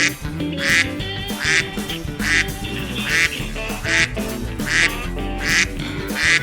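A duck quacking over and over at an even pace, a little more than once a second, over background music.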